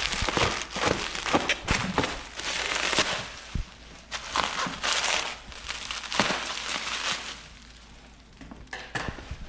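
Packing material being pulled off and crumpled by hand: irregular crinkling and crackling with a few light knocks, dying down for a moment near the end.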